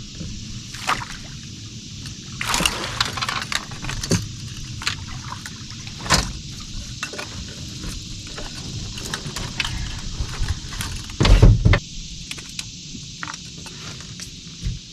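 Water splashing and sloshing with scattered small knocks and clicks, and one heavy thump about eleven seconds in.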